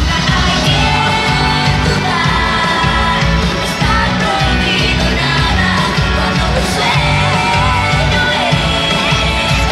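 Loud live pop concert music in an arena, with heavy bass and a singing voice. Girls close to the microphone are yelling and singing along.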